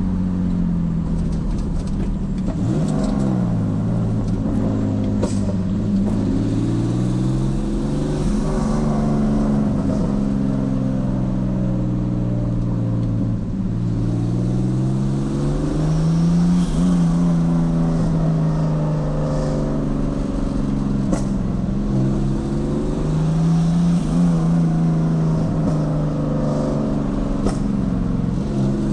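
Turbocharged BMW E46's engine running under way, its pitch falling and rising several times as it revs and eases off, with a few faint ticks.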